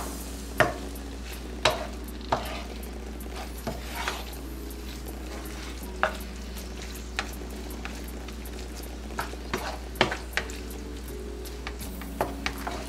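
Beef and broccoli stir-frying in a nonstick pan, sizzling steadily while a wooden spatula stirs and scrapes through it. Sharp knocks of the spatula against the pan come at irregular intervals.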